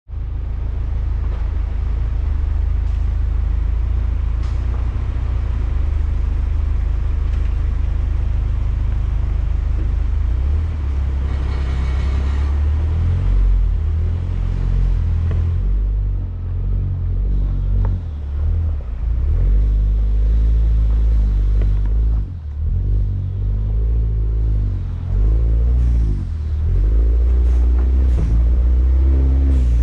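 Mini Cooper Countryman All4 driving off-road: a continuous deep engine and road rumble whose pitch shifts up and down in the second half, with a few short knocks.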